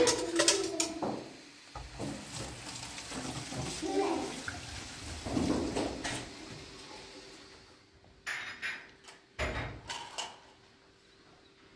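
Water running from a kitchen tap into a sink basin while dishes are washed, with clinks and knocks, mostly in the first half. Two sharp knocks come later.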